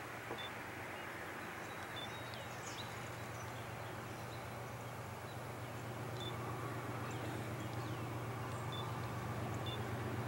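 Distant diesel freight locomotive approaching: a low steady drone that grows slowly louder, with birds chirping now and then.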